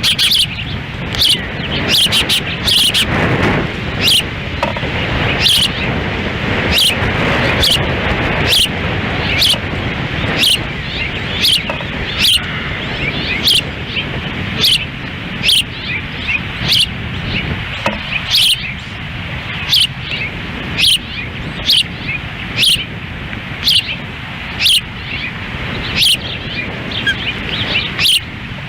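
Ospreys calling at the nest: a long series of short, high whistled chirps, about one a second, over wind noise on the microphone.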